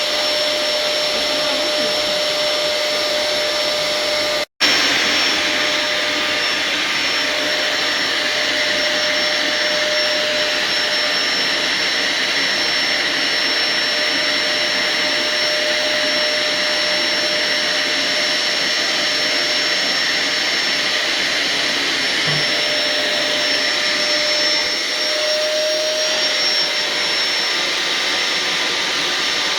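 Household vacuum cleaner running steadily, a constant whine over a rushing hiss. The sound drops out for an instant about four and a half seconds in, and the whine rises slightly near the end.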